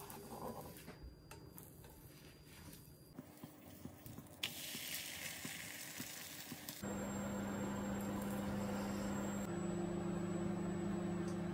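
A crepe being cooked in a nonstick frying pan: a plastic spatula scrapes under it and the pan sizzles faintly with scattered small ticks. About seven seconds in, a louder steady, pitched hum takes over.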